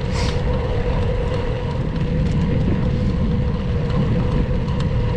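Wind buffeting the microphone over steady tyre-and-road noise from a gravel bike rolling along, with a faint steady hum underneath.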